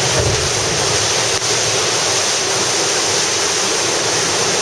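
A large swell wave surging into a rock sea cave and blowhole, water and spray rushing through it in a loud, steady rush. A low rumble is strongest in the first half second.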